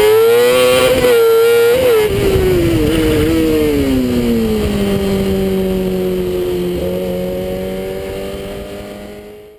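Rally car engine, heard from an onboard camera on the car. The revs stay high with brief dips for the first two seconds, then fall steadily over about three seconds and settle to a steady lower note. The sound fades out near the end.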